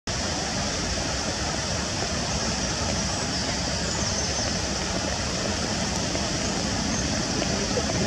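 Small waterfall pouring down onto rocks and into a shallow, rocky stream: a steady rush of falling and splashing water.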